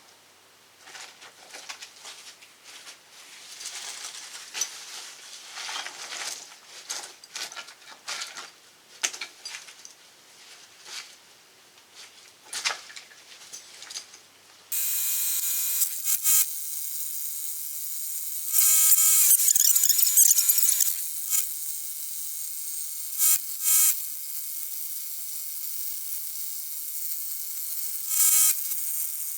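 Scattered knocks and clatters, then about halfway through a power tool starts abruptly and runs steadily with a high buzzing whine. It grows louder several times, with its pitch bending, as if working under load against concrete.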